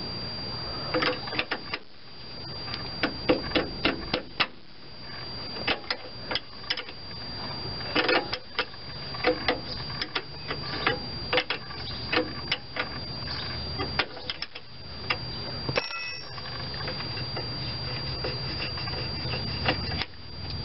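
A wrench working the fitting where the rubber brake hose meets the steel brake line at the frame bracket gives irregular sharp metallic clicks and ticks, some in quick runs of several.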